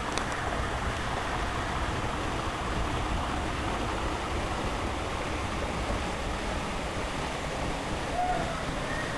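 Waterfall rushing in a steady, even roar of falling water, with a brief high note about eight seconds in.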